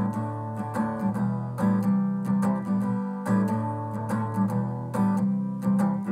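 Acoustic guitar strummed steadily, changing chord every second or two, with no singing.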